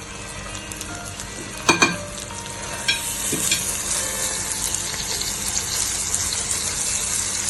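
Chicken breast frying in melted butter in a frying pan: a steady sizzle that grows louder about three seconds in. Two sharp knocks just before two seconds in, and a few lighter clicks soon after.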